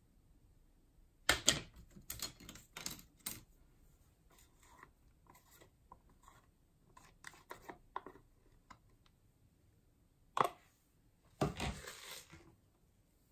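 A clear plastic tub handled and knocked over a glass bowl while glitter slime and small beads are tipped out: an irregular run of sharp clicks, taps and crackles, loudest about a second in and again near the end.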